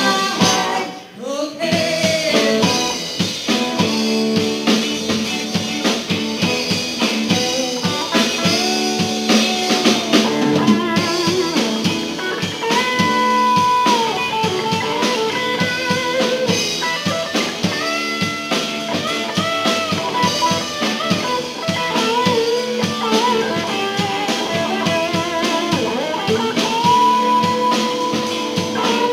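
Live blues-rock band playing: a lead electric guitar holds long notes with bends and vibrato over a drum kit, after a brief break about a second in.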